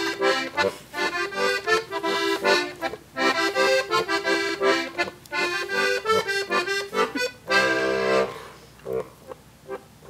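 Diatonic button accordion playing a lively traditional Bavarian Gstanzl tune in bouncing rhythmic chords, ending its phrase on a long held chord about eight seconds in, then dropping to quiet short notes.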